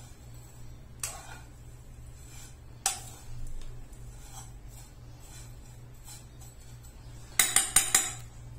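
Metal spoon clinking and scraping against a frying pan while stirring toasted vermicelli: single clinks about a second and three seconds in, then a quick run of about five taps near the end.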